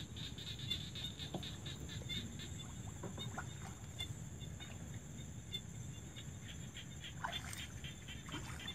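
Evening marsh chorus: small frogs calling in rapid clicking pulses over a steady high insect trill, faint throughout.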